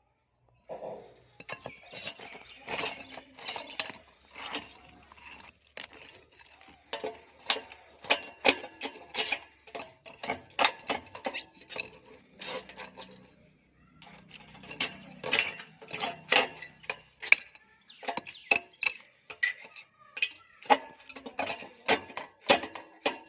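Rapid, irregular metallic clinks and knocks, some ringing briefly: tools striking and working on a pipe to cut it open and free a bird trapped inside.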